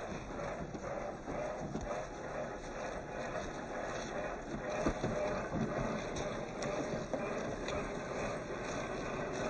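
Radio-controlled 4x4 scale crawler driving over rough ground: a continuous noisy rumble of its drivetrain and tyres, with a couple of sharp knocks.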